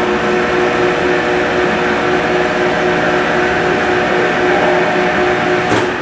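Electric drive motor and gearing of a heavy welding positioner running steadily with a whine of several tones as the table moves. It stops with a clunk near the end.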